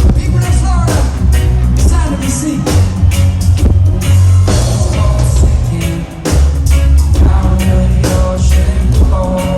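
A live reggae band playing, with a heavy, booming bass line, steady drum hits and a singing voice over guitar.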